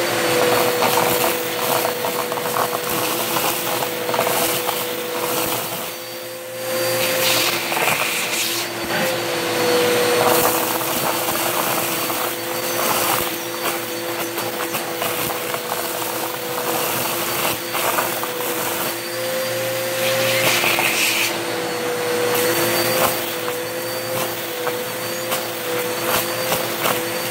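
Vacuum cleaner running steadily: a constant motor whine over a rushing hiss, the pitch wavering slightly as it is pushed about, briefly quieter about six seconds in.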